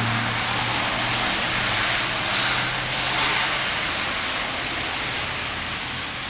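A car driving through deep water on a flooded road: a steady rushing hiss of water spray that swells about two to three seconds in, over a low engine hum that fades out partway through.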